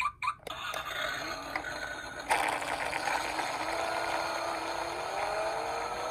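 Toy minicar rolling down a slope: a few sharp clicks, then the wheels and gearing whirr steadily, growing louder about two seconds in, with a faint hum slowly rising in pitch.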